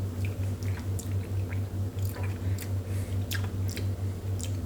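Wet mouth sounds of someone tasting a sip of bourbon: scattered lip smacks and tongue clicks. A steady low hum pulsing rapidly runs underneath.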